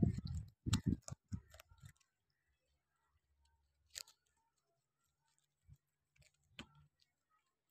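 White rabbits gnawing a head of cauliflower: a quick run of crisp crunching clicks for the first couple of seconds, tailing off into a few scattered single clicks.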